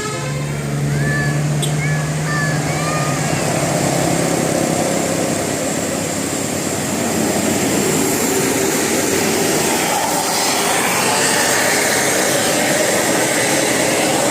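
A bus passing close by, its engine and tyres making a broad, steady noise that grows louder after about seven seconds. A low hum runs through the first few seconds, and a few short high chirps come about one to three seconds in.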